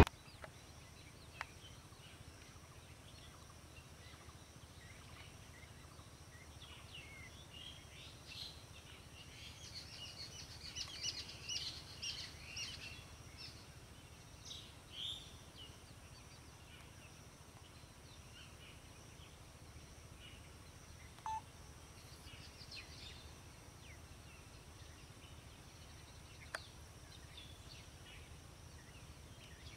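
Quiet rural ambience with birds chirping, most busily from about a third of the way in, over a faint steady low hum. A short single note sounds about two-thirds of the way through.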